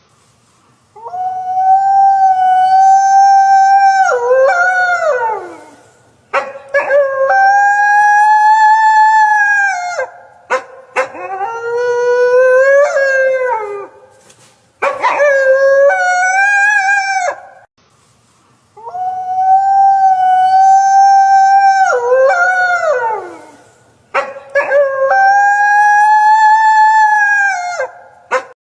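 Wolf howling: a run of long, loud howls, each holding a steady pitch for a few seconds before sliding down, with a second howl overlapping now and then. The same sequence of howls repeats about two-thirds of the way through.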